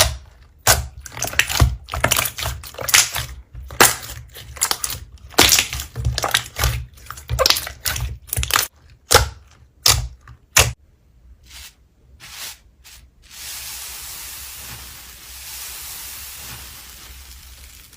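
Slime being squeezed and pressed by hand, giving a dense run of irregular crackling pops and clicks for about eleven seconds. A few more pops follow, then a steady hiss for the last few seconds.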